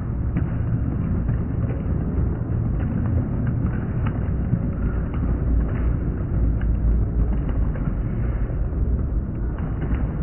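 Fireworks going off in quick succession: a continuous rumble of booms with scattered crackles and pops.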